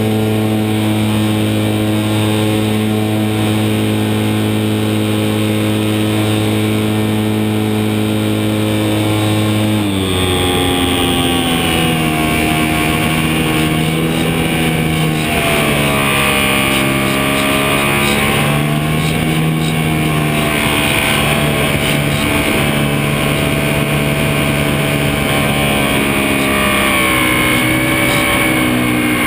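HobbyZone Super Cub DSM model airplane's electric motor and propeller, heard from a camera strapped under the plane with airflow rushing past: a steady drone at one pitch, then about ten seconds in the pitch drops abruptly as it is throttled back and afterwards rises and falls with the throttle.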